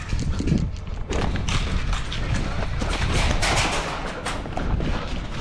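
Irregular knocks and thuds, roughly two a second, over a low steady rumble.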